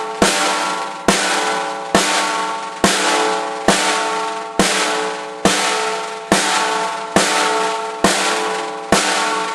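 Snare drum played as a slow single stroke roll: about eleven single strokes, evenly spaced a little under a second apart, each ringing out and fading before the next.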